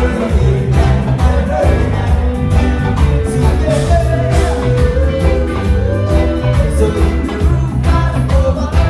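Rock music with a steady drum beat, bass and a singing voice.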